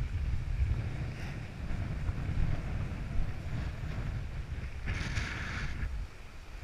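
Wind rumbling on the microphone, with a short hiss about five seconds in.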